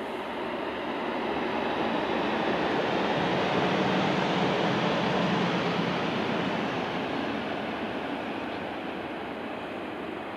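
Shinkansen high-speed train passing along an elevated concrete viaduct: a broad rushing noise that swells to its loudest about four seconds in, then fades as the train moves away.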